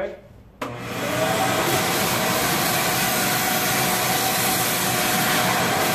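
A wall-mounted garage vacuum switches on about half a second in, spins up briefly, then runs steadily as its hose sucks up dry leaves from a truck's windshield cowl.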